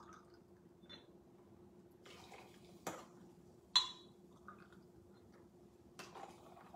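Hard apple cider poured from a bottle into a jigger, a faint trickle with two light clinks about three and four seconds in, then tipped into a stainless cocktail shaker near the end.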